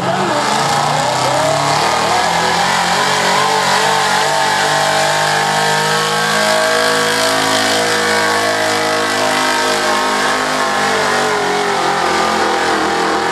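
Chevrolet pickup's engine running hard at high revs under load while dragging a truck-pull sled. Its pitch climbs gently through the first half and sags toward the end.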